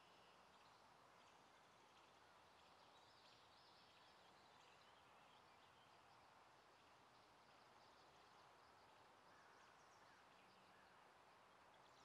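Near silence: faint steady outdoor background hiss, with faint scattered high chirps of distant birds.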